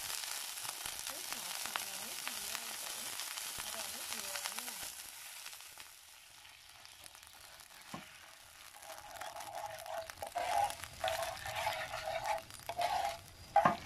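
Hot oil sizzling with sliced scallions in a nonstick frying pan, fading out about five seconds in as broth goes in. After a quiet stretch with a single click, a metal spoon stirs and scrapes in the pan in short repeated strokes for the last few seconds.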